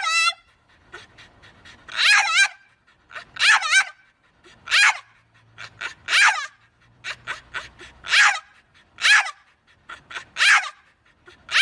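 A dog 'talking': a series of about nine short, high, wavering whine-howls, roughly one a second, each bending up and down in pitch, with quick panting breaths between.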